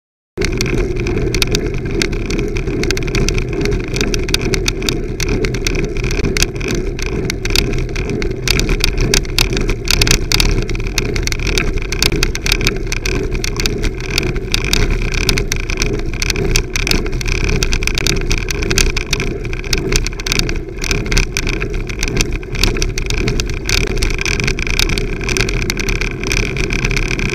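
Wind rushing over a bicycle-mounted camera's microphone, with tyre and road noise from riding on tarmac and frequent small knocks and clicks. It starts abruptly about half a second in.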